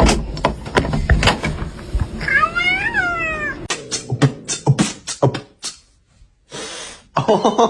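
A cat meows once, a call that rises and then falls, among a run of sharp clicks or knocks that come before and after it.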